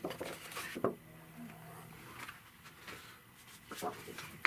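Sheets of drawing paper being handled and lifted off a wooden picture frame: light rustling, with one sharp tap or snap about a second in and a few softer knocks near the end.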